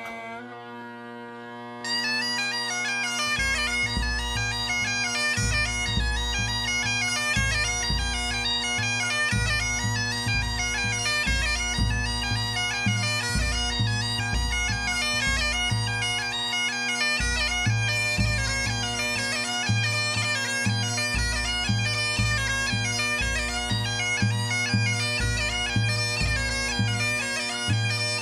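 Pipe band playing: bagpipe drones strike up first, the chanter melody comes in about two seconds later, and low drum beats join a second or so after that and keep time under the pipes.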